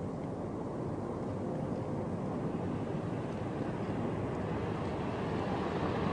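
A steady low rumbling noise that grows slightly louder and brighter near the end.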